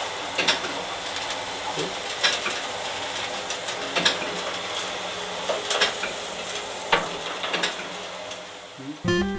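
Wood-chip auger feeder running, with chips rattling down a sheet-metal chute into the boiler hopper: a steady rushing hiss with irregular sharp clicks and clanks about once a second. The feeder has started up again after stopping for spilled chips.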